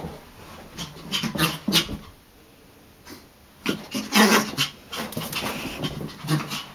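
Small chihuahua panting in quick bursts during excited play, in three spells with short pauses between.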